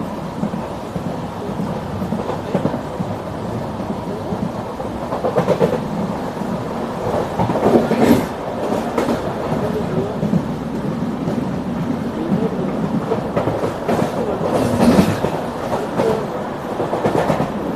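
Bhavnagar–Kochuveli Express running on the rails: a loud, steady rumble with sharp clacks of the wheels over rail joints now and then.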